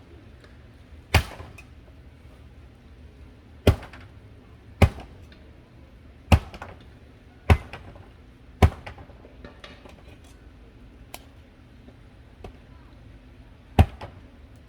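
A series of sharp knocks or hits, about seven loud ones at uneven intervals with a few fainter taps between.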